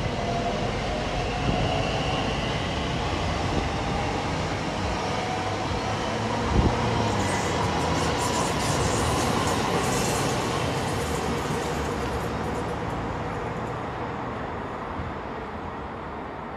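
Class 345 Crossrail electric multiple unit running past on the main line, its wheel-on-rail rumble and hiss building to a peak midway and then fading as it draws away, with a faint motor whine. A single sharp knock sounds about six and a half seconds in.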